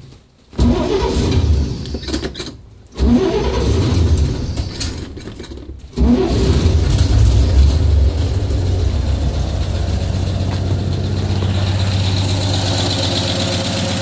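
Cold start of a 1953 Chevrolet panel truck's inline-six on years-old gasoline: it fires and stumbles out twice, then catches about six seconds in and settles into a steady idle. Hesitant starting is what the owner puts down to the old gas. Once running, it has what the owner calls a major exhaust leak on one side.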